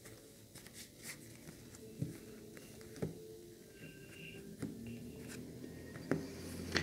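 A deck of tarot cards handled and shuffled by hand, giving quiet rustles and a few soft clicks about a second apart. Near the end the deck is spread out across a cloth-covered table.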